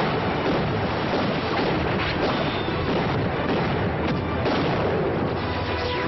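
Film explosion effects: a continuous din of pyrotechnic blasts going off, with sharper bangs about two seconds in and again about four seconds in.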